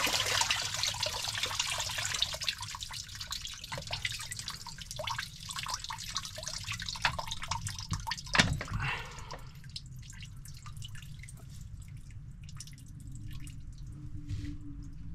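Water dripping and trickling out of a marine diesel's coolant passages as the leaking coolant pump is worked loose from the block. Light metallic clicks from the pump come with it, and one sharper knock about eight seconds in. The trickle fades to sparse drips after about nine seconds.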